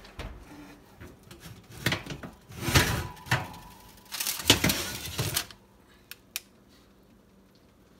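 Wire oven rack and a parchment-lined baking dish handled with a towel: a run of scraping and rustling noises, loudest about three and five seconds in, then two light clicks.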